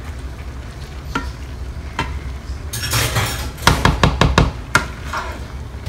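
A red spatula stirring a thick mix of chopped vegetables, beans and corn cobs in a square copper-coloured pan. A few soft knocks come in the first two seconds, then a quick run of scrapes and clacks against the pan about three to five seconds in.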